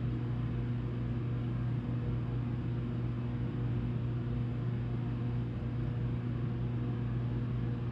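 Steady low electrical hum with a faint noisy hiss over it, unchanging throughout.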